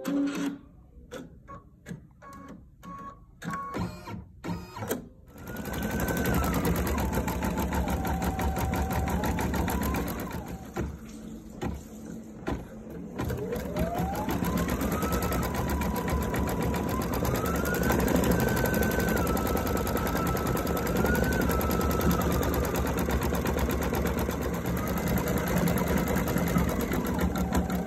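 Electric sewing machine stitching, its motor whine rising and falling as the speed changes. After a few seconds of scattered clicks it starts up, eases off briefly, then runs steadily again.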